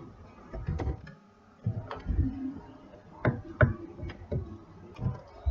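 Computer keyboard being typed on: about ten irregular key clicks and knocks as code is entered.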